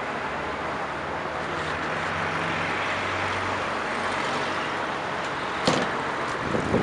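Hinged metal wheelchair ramp of a trolleybus being flipped out of the doorway by hand and dropped onto the pavement: a sharp metal clank about five and a half seconds in, then a few lighter knocks near the end, over steady street and vehicle noise.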